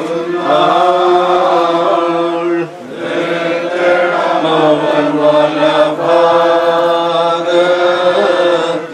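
Men's voices chanting a slow Malayalam Christian funeral hymn in long held notes that step slowly from pitch to pitch, with a short breath about a third of the way in.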